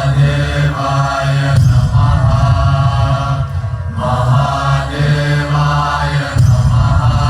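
Devotional chanting in repeated sung phrases, each a couple of seconds long, over a steady low drone.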